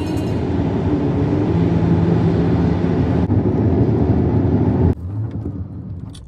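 Road and engine noise inside a car cabin at highway speed: a steady rushing hum with a deep low end. About five seconds in it drops abruptly to a much quieter hum.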